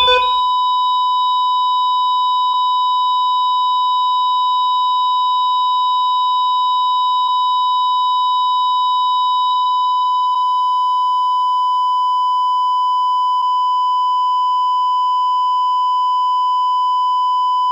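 Heart monitor flatline: one continuous, unbroken beep at a steady pitch, the sign that the heart has stopped.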